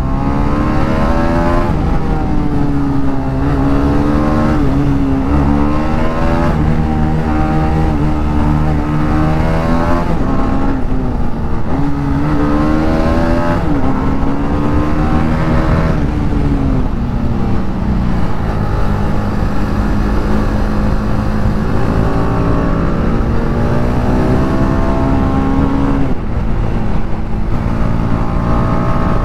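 A single-cylinder sport motorcycle engine ridden hard through a run of corners, heard from the rider's helmet. The engine note climbs and falls again and again as the throttle is opened and closed, about every two to four seconds.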